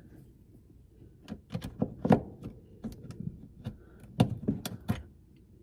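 Pliers clicking and knocking against the metal spring clip of a car sun visor mount in an irregular series of sharp clicks, loudest about two seconds in and again near the end.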